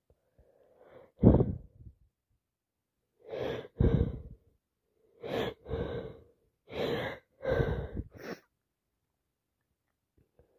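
A fit of repeated sneezes from a person with a head cold: about six sharp, voiced bursts, several led in by a short gasping intake, the first one the loudest.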